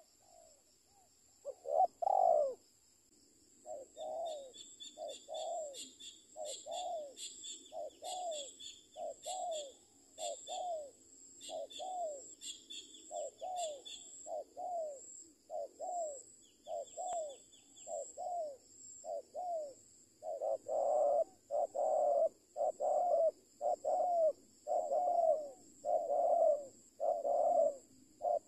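Spotted dove cooing in a long, regular series of short calls that fall in pitch, about three every two seconds, growing louder about twenty seconds in. Small-bird chirps come through in the first half, over a steady high insect drone.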